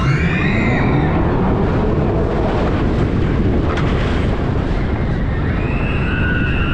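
Vekoma motorbike roller coaster train running at speed: a loud, steady rumble of wind and wheels on track. A whine rises in pitch over the first two seconds as the train picks up speed. Riders scream at the start and again near the end.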